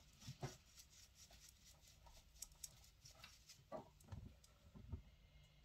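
Near silence with faint scattered taps and light scratchy handling sounds, a makeup brush and eyeshadow palette being worked, with a few soft thumps near the end.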